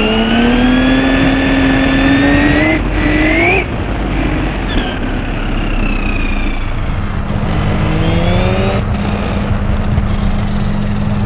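A fast electric RC car's motor whining as it accelerates, its pitch climbing in a long rise, then a short sharp one, then another rise a few seconds later, with a steady low hum under it in the second half.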